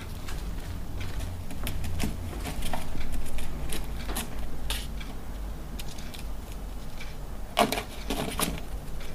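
Gray squirrel gnawing and tearing at a cardboard box: irregular scratchy clicks and rips, with a louder flurry near the end, over a steady low hum.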